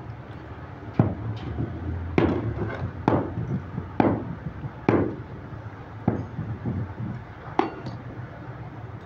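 A metal rod knocking against a metal sand-casting moulding flask: about eight sharp knocks, roughly one a second and a little uneven, each with a short ring.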